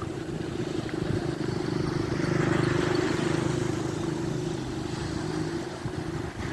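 An engine going by, running at a steady pitch, growing louder to its peak about two and a half seconds in and then fading away.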